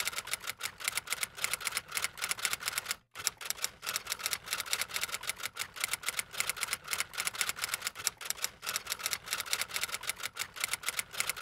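Typewriter keystroke sound effect: rapid clacking of keys at several strokes a second, with a brief pause about three seconds in, stopping abruptly near the end.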